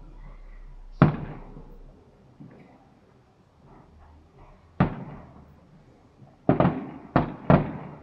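Aerial fireworks bursting in a series of sharp bangs, each dying away in an echo. One loud bang comes about a second in and another just before five seconds. Near the end three bangs follow in quick succession.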